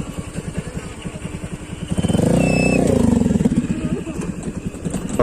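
Honda Click scooter engine running while riding, with a steady low pulsing beat; about two seconds in the engine sound swells louder for about a second, then settles back.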